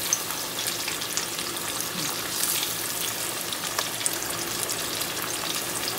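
Battered catfish pieces deep-frying in hot grease: a steady sizzle with scattered small crackles and pops as the pieces are turned with metal tongs.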